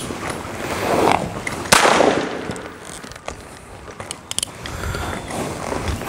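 A single revolver shot about a second and a half in: a sharp crack with a short echo after it. A few light clicks follow a couple of seconds later.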